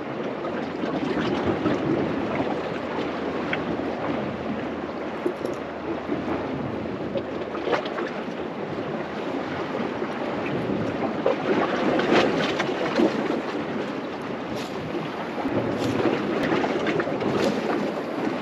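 Wind buffeting the microphone over the sea washing against coastal rocks, a steady rushing noise with a few short splashes now and then.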